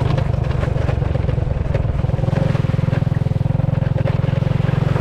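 A small engine running steadily, with a fast, even beat.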